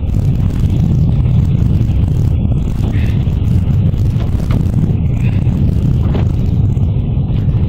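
A fishing boat's engine running with a steady low rumble.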